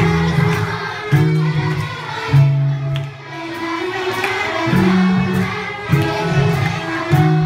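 Live band playing a cover song: bass guitar holding low notes that change every second or so, drum hits, guitar and singing.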